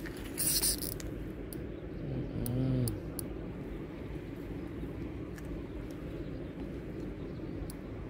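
Steady low outdoor rumble with faint scattered clicks, a brief rustling hiss about half a second in, and a short vocal sound with a bending pitch around two and a half seconds in.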